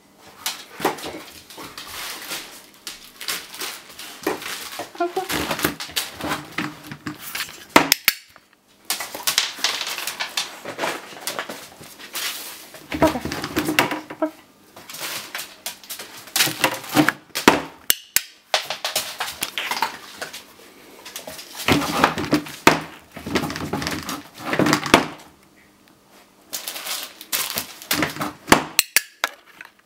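A dog nosing the lid of a plastic swing-lid bin and handling a crumpled plastic wrapper: irregular clattering and crinkling, with quieter gaps in between.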